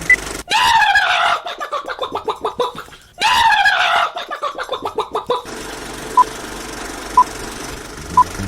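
Mouth-made sound effect, done twice: a falling whistle-like tone that breaks into a rattling run of clicks, slowing as it goes. Short beeps come about once a second before and after.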